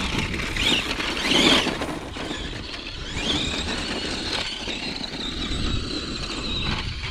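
Tamiya GF-01 radio-controlled heavy dump truck climbing a gravel slope, its electric motor and gears whining high. The whine comes in two short surges, then rises about three seconds in and holds steady under load before dropping away near the end, over the crunch of wheels on gravel.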